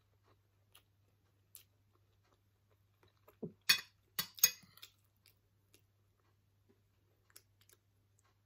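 Metal spoon scraping and clinking against a ceramic plate while scooping up fried rice: a short cluster of sharp clicks about three and a half seconds in, with a few faint ticks before and after.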